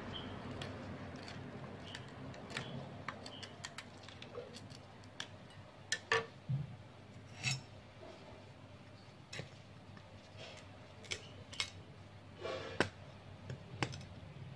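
Knife blade scraping and chipping the hard rind off a ripe pumpkin, in irregular short scrapes and sharp clicks, with a few louder knocks of the blade against the rind.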